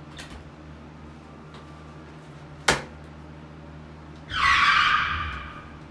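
A sharp click, then about a second and a half later a rough scrape lasting about a second that fades away, as a door is opened and a gallon plastic jug of glue is set down and pushed on a wooden stool.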